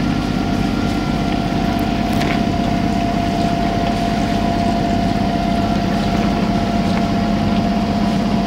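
Sailing yacht's auxiliary engine running steadily under way, a constant drone with a steady higher whine over it.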